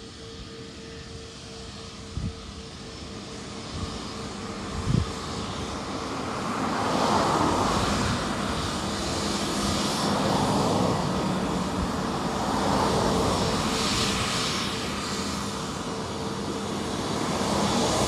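Engines of an easyJet Airbus A320-family jet taxiing, a steady jet hum that grows louder about six seconds in and then swells and eases. A few soft knocks come in the first five seconds.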